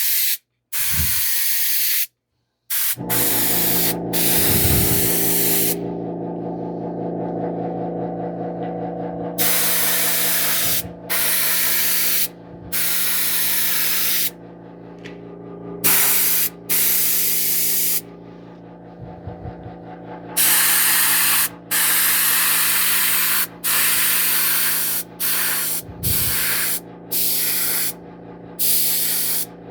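Airbrush spraying paint in repeated bursts of hiss, long passes at first and then shorter, quicker ones near the end. A steady mechanical hum starts about three seconds in and runs underneath.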